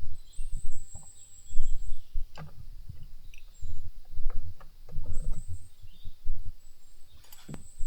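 Scattered metal clicks and knocks from a chainsaw being handled and worked with a tool while its bar-cover nuts are loosened, over uneven low bumps. A bird chirps high and briefly three times in the background.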